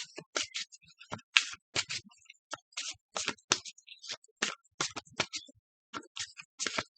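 Tarot cards being handled and shuffled: a run of short, irregular scratchy clicks and taps, about two or three a second.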